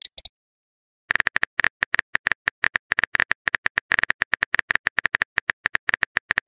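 Phone keyboard typing sound effect: a fast, uneven run of short tapping clicks that starts about a second in and stops just before the end, as the next text message is typed in a texting-story app.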